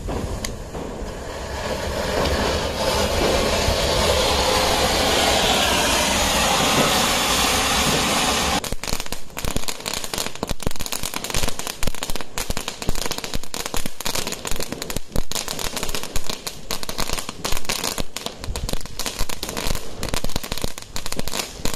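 Diwali fireworks: a steady fizzing hiss for about eight seconds, then cutting over to a long run of rapid, dense crackling pops.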